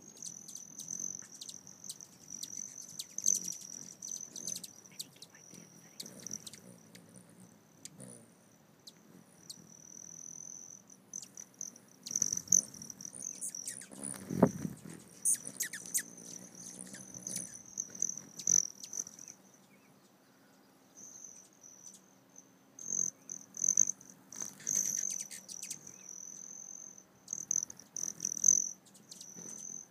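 Hummingbirds at a feeder: a high, metallic wing trill that swells and fades as birds come and go, typical of male broad-tailed hummingbirds, with bursts of sharp chips. A dull thump about 14 seconds in.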